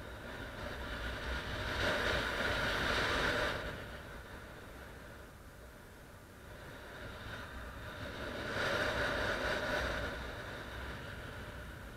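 Wind rushing over the microphone of a paraglider pilot's camera in flight, a steady hiss that swells louder twice, once about two seconds in and again near the end.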